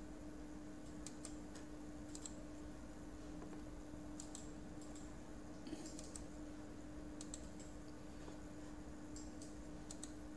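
Faint computer mouse clicks, single and in quick pairs, over a steady low hum.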